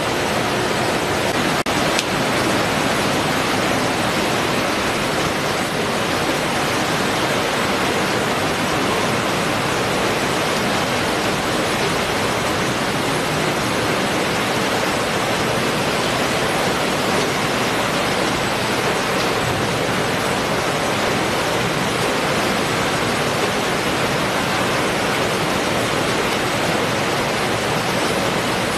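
Loud, steady rushing noise of a fish-processing line: conveyor belts and machinery running, with a single faint click about a second and a half in.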